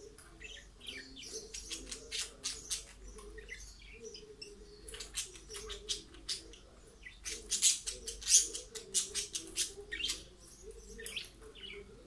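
Budgerigars chirping and chattering: rapid runs of short, sharp chirps over a soft, continuous warble, busiest and loudest about seven to nine seconds in.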